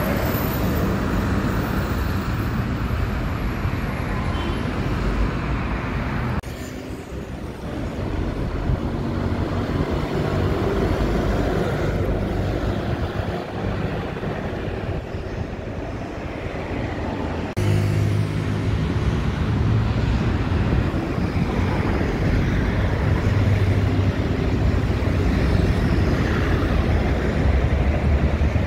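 City buses and other traffic passing along an avenue: engines running and tyre noise. The sound changes abruptly twice, dropping about six seconds in and jumping up again with a strong low engine hum at about seventeen seconds.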